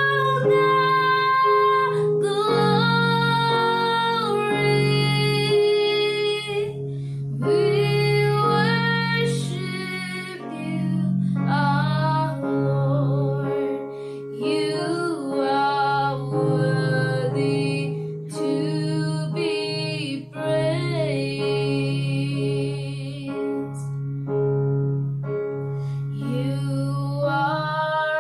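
Worship song: a woman singing over keyboard and guitar accompaniment.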